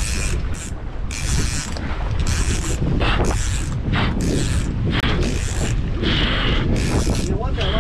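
Conventional saltwater fishing reel working against a hooked yellowfin tuna, its drag and gears buzzing in short repeated bursts about one a second. Wind rumble on the microphone underneath.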